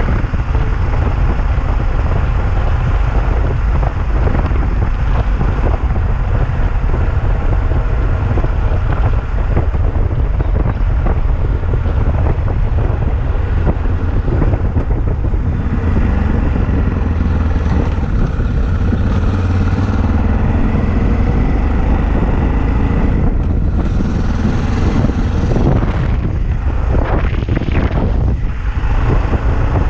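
Yamaha XT660Z Ténéré single-cylinder motorcycle running on the move, with wind buffeting the microphone and a constant quick rattling and knocking from its aluminium Roncar top case.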